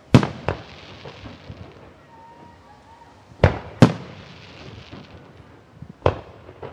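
Fireworks going off: five sharp bangs, each with an echoing tail, coming in two quick pairs and then a single one near the end.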